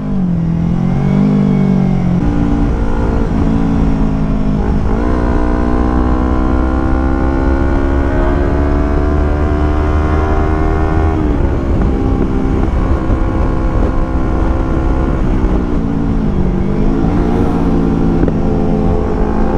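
Yamaha YZF-R25's 249 cc parallel-twin engine running under the rider, its pitch climbing slowly for several seconds as it pulls. About eleven seconds in the pitch drops sharply; it dips and climbs again near the end.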